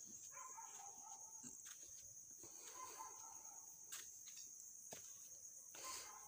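Near silence: room tone with a faint, steady high-pitched whine and a few faint taps and rustles.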